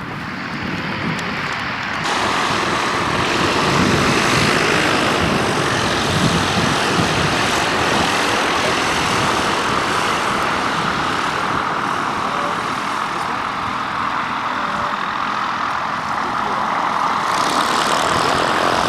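Light propeller aircraft engine running, getting louder about two seconds in and then holding steady.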